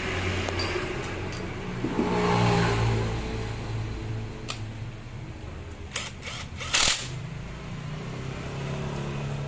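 A motorcycle engine running at idle, revving up briefly about two seconds in and settling back, with a few sharp bursts of noise near the end, the loudest a short burst about seven seconds in.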